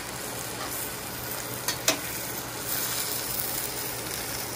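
Chopped vegetables sizzling in a pan as they are stirred, with two sharp knocks of the utensil a little under two seconds in.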